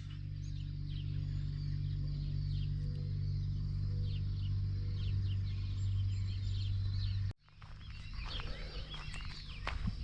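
Many small birds chirping in quick, short calls, over a steady low hum that cuts off suddenly about seven seconds in.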